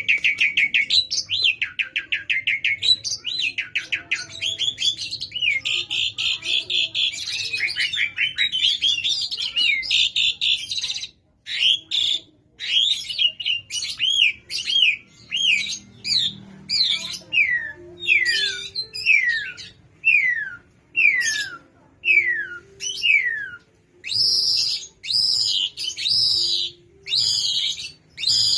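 Asian pied starling (jalak suren) singing hard. It opens with a fast, dense chattering warble, then gives a run of clear whistles about one a second, each falling in pitch. Near the end come louder, harsher calls.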